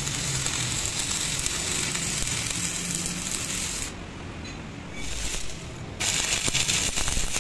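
Stick (arc) welding on a steel truck axle spindle: the arc hisses steadily, breaks off for about a second near the middle, flares briefly, then runs again until just before the end.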